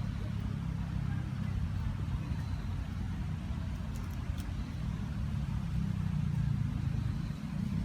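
Road traffic heard as a steady low rumble, swelling slightly in the second half.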